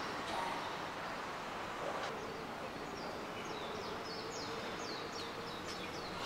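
Outdoor background noise with a small bird chirping repeatedly from about three seconds in: short, high notes that slide downward, several a second.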